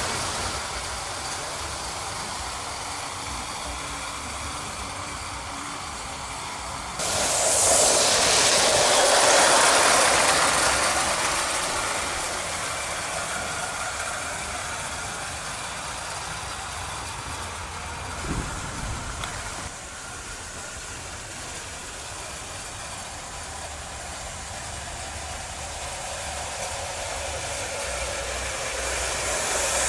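Gauge 1 Aster live steam Schools Class model locomotive running with a freight train of tinplate and wooden wagons, a steady noisy run of wheels on track and steam. It gets suddenly louder about a quarter of the way in for several seconds, with a short knock a little past the middle.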